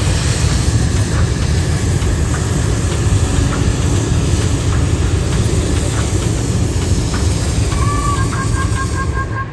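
Hot air balloon's propane burner firing in one long continuous blast, a loud steady rushing noise with deep rumble and hiss, heating the air in the envelope during inflation.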